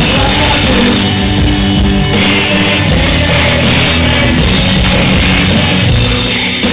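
Loud live rap music through a concert PA: a bass-heavy backing track with a vocal over it, playing without a break.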